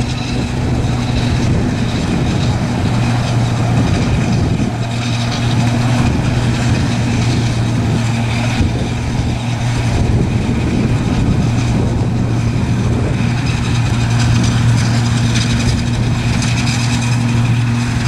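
Large diesel engines of maize harvesting machinery running steadily under load, a constant deep hum over a rushing, mechanical noise.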